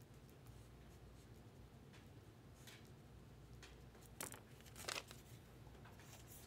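Near-silent room tone broken by a few brief, faint rustles of packaging being handled or torn, the loudest two about four and five seconds in.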